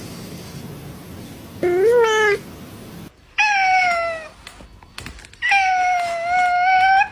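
A domestic cat meowing three times: two short meows and then a long, drawn-out one near the end.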